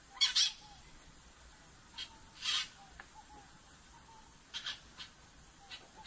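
Peach-fronted parakeet giving short, harsh screeching calls: a quick pair at the start, then single calls every second or two.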